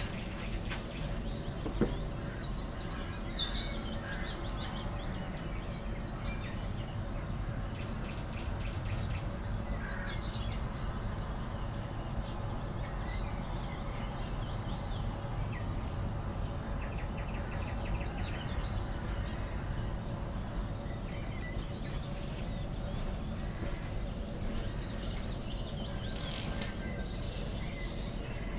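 Small songbirds chirping and singing short trills, over a steady low background noise. A single sharp click about two seconds in.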